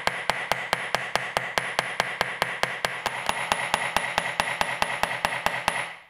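Small hammer tapping rapidly and evenly, about five strikes a second, peening a pin in an old Swiss Army knife's handle against a steel horn anvil. Each strike rings metallically, and the tapping stops abruptly at the end.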